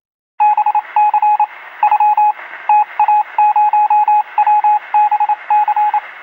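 A run of short electronic beeps at one pitch, in quick groups with brief gaps, over a steady hiss, thin like sound through a radio or telephone. It starts suddenly less than half a second in.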